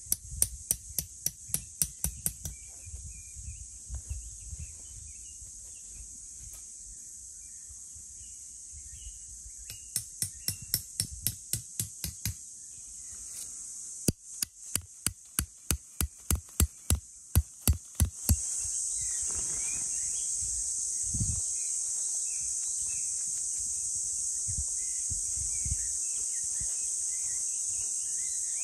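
Metal tent stakes being driven into the forest floor with the back of an axe head: quick runs of sharp metallic strikes, about three or four a second, in three bursts. After the last burst a steady high insect drone takes over, with birds chirping faintly.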